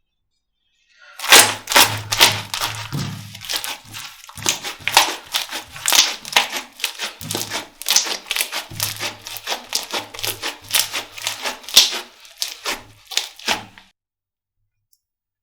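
Slime being squeezed and pressed by hand, a dense, irregular run of sticky clicks and pops that starts about a second in and stops about a second and a half before the end.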